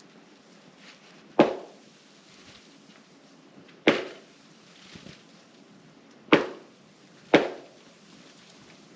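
Four sharp knocks on the trunk of a bent cedar weighed down by wet snow, struck to shake the snow loose so the tree springs back up. The first three come about two and a half seconds apart, the last two close together, each fading quickly.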